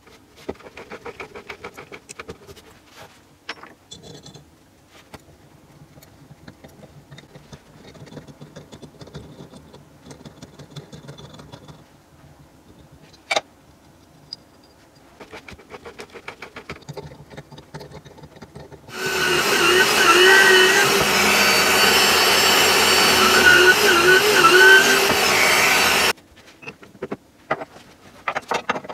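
Faint clicks and rubbing of hand work on a metal engine case, then about 19 seconds in a bench drill press runs and drills for about seven seconds, its motor pitch wavering under load, before cutting off suddenly.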